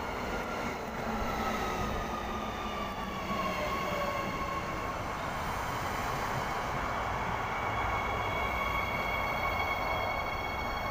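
Electric suburban train pulling into a platform: a high electric motor whine falls in pitch over the first few seconds as it slows, then settles into a steady higher whine over the rumble of the cars rolling past.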